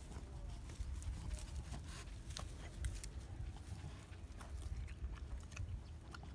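Boston terrier biting off and chewing grass: irregular crisp crunches and snaps as the blades tear.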